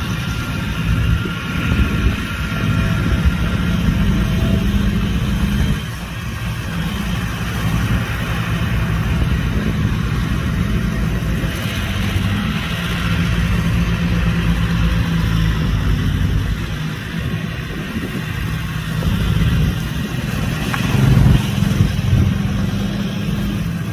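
Heavy diesel earthmoving machinery running under load with a steady low engine note. It dips briefly about a quarter of the way in and grows louder for a moment near the end.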